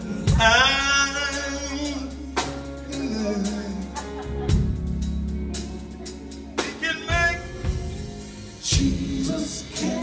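A live gospel quartet and band playing, with drum hits and a steady bass under long, drawn-out sung phrases from the male singers.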